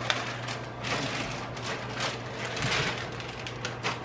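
Hot sauce bottle being shaken and squirted onto tortillas: a run of short, irregular hissing splutters, over a low steady hum.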